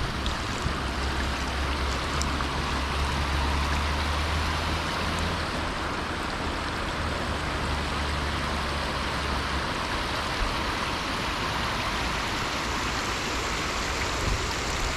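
Fast-running floodwater rushing steadily: a river in flood backing up and pouring across its floodplain. A low rumble sits underneath for the first two-thirds.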